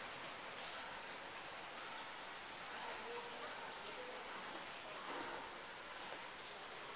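Steady hiss of wet snow falling on tiled roofs and a wet cobbled street, with a few faint ticks.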